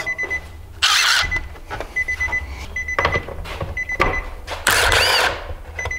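Cordless driver running in two short bursts, about a second in and again near the five-second mark, backing out the side mirror's mounting fasteners inside a truck door. A high electronic chime beeps steadily about once a second underneath.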